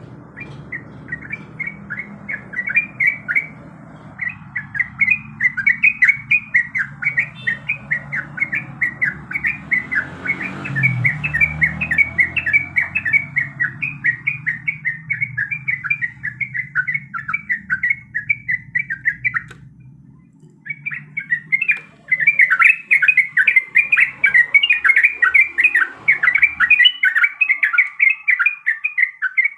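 Yellow-vented bulbul (trucuk) singing a long, rapid chattering run of short repeated notes, pausing briefly about two-thirds of the way through and then starting again. A faint low rumble runs underneath and fades out near the end.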